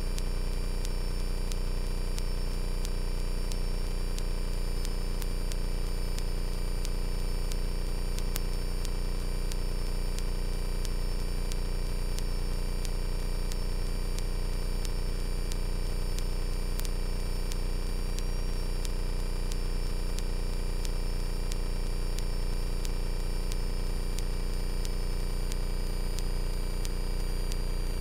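Carbon Cub FX-3 light aircraft's piston engine and propeller running at steady power in flight, a constant many-toned drone with a faint high whine above it.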